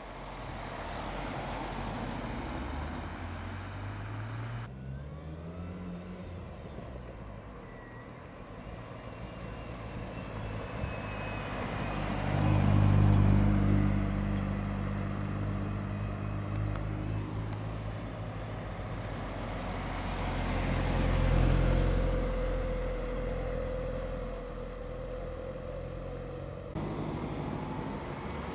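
Modern MINI cars driving past one after another at low speed, engines pulling away. An engine note rises a few seconds in, the loudest pass comes about halfway through, and another car swells past about two-thirds through.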